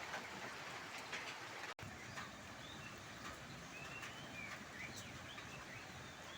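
Faint outdoor background hiss with scattered short bird chirps. The audio drops out for an instant a little under two seconds in.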